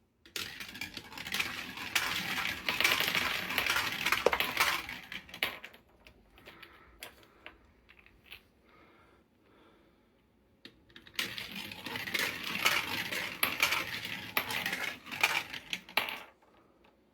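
Marbles rolling and clattering through a magnetic-tile marble run: a long rattle of many quick clicks for about five seconds, a quieter stretch with scattered clicks, then a second long run of clatter.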